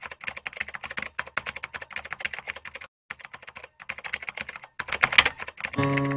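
Rapid typing on a computer keyboard, a dense run of clicking keystrokes with a brief pause about three seconds in, growing louder near the end. Acoustic guitar music comes in just before the end.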